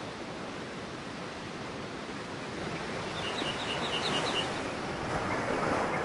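Surf washing up on a sandy beach: a steady hiss of breaking waves that grows louder in the second half. In the middle a bird chirps a quick run of about seven short high notes.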